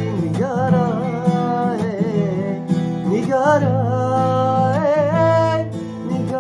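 A man singing long, wavering held notes over a strummed acoustic guitar. The voice slides and bends between pitches while the guitar keeps up steady chords.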